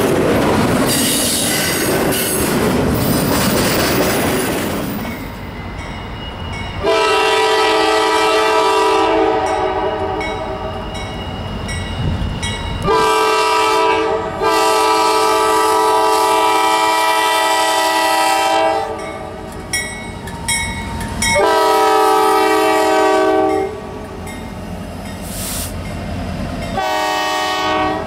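A double-stack intermodal freight train passing close, with steady wheel and rail noise. Then a Norfolk Southern freight locomotive sounds its multi-chime air horn in several blasts, the longest about five seconds and one short blast near the end, with the train's rumble between them.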